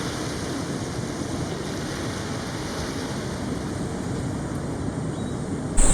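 Steady wash of ocean surf, an even rushing noise.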